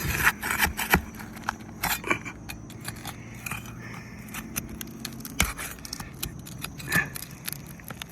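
Metal pry tool scraping and clicking against asphalt shingles as a roofing nail is worked loose, busiest in the first second, then scattered clicks and a couple of sharper knocks.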